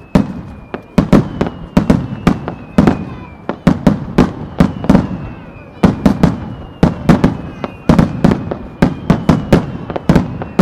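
Starmine fireworks display: a rapid barrage of aerial shell bursts, two or three sharp bangs a second, each trailing a low rumbling echo.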